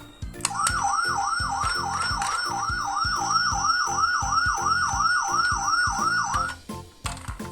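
Toy emergency vehicle's electronic siren sounding in fast, repeated upward sweeps, about three a second, starting about half a second in and cutting off about a second before the end. Background music with a steady beat runs underneath.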